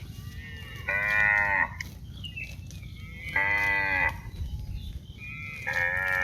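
Cattle mooing: three short moos, each under a second long, about two and a half seconds apart, over a steady low rumble.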